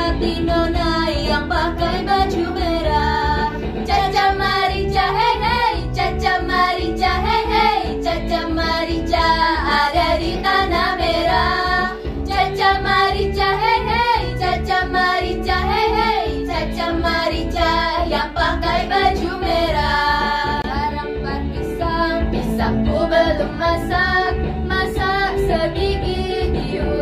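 Girls' vocal group singing together in harmony into microphones, part of a medley of Indonesian songs.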